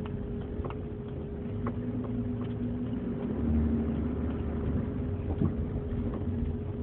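Cabin noise of a 2003 GMC Envoy driving over potholes: steady engine and road rumble with a few faint knocks. The knocks are the clunk from the passenger-side front end that the owner is trying to catch.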